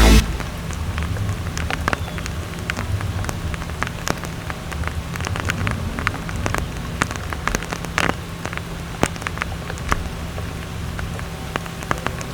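Rain pouring down, with many individual drops striking close by as sharp taps, over a low steady hum.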